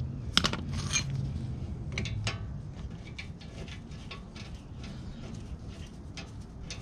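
Hand tools on a brake caliper bolt: a socket ratchet and wrench clinking and clicking against metal as the 14 mm bolt is worked loose. A few sharp clinks come in the first two and a half seconds, then fainter scattered ticks.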